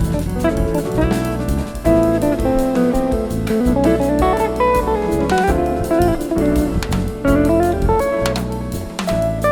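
Instrumental jazz played live by a small band: a plucked guitar melody over keyboards, double bass and drum kit.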